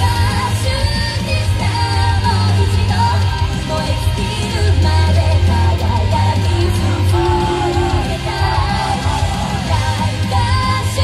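A live idol-group rock song: women singing and shouting into microphones over loud, hard-rock music with a heavy bass.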